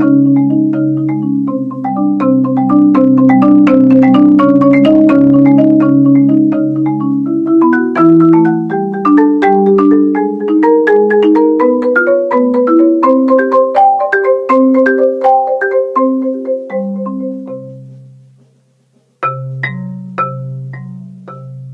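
Solo marimba played with four mallets: fast, even repeated strokes on low chords, the notes moving step by step, then thinning out and dying away about eighteen seconds in. After a short silence, a few soft low notes ring out and fade.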